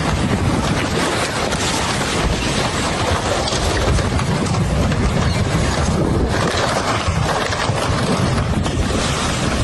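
Floodwater rushing in a steady, loud torrent, with a dense crackling rattle through it.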